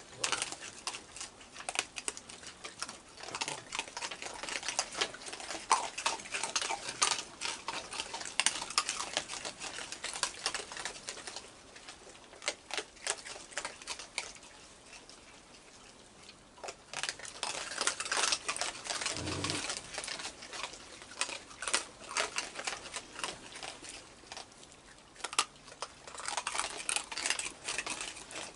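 A group of raccoons chewing dry food: a dense run of crisp crunches and clicks that thins out twice for a few seconds.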